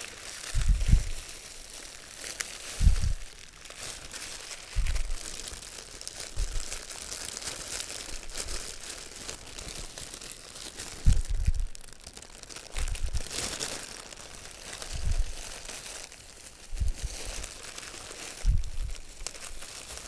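Crinkling and rustling of disposable plastic gloves and banana leaves as hands wrap and handle banana-leaf parcels, with a dull bump every couple of seconds.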